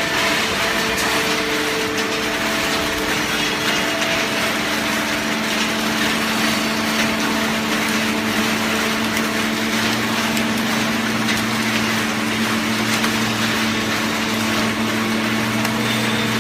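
Bulk waste paper baler and its conveyor running: a steady mechanical din with constant hums and light clatter, a lower hum joining about ten seconds in.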